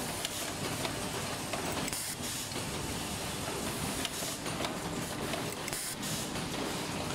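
Pneumatic cable-processing machine running: air cylinders venting compressed air in short hissing bursts, roughly every two seconds, over a steady mechanical clatter.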